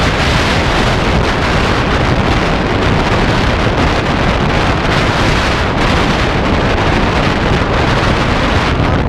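Strong wind buffeting the microphone: a loud, steady roar with no voices.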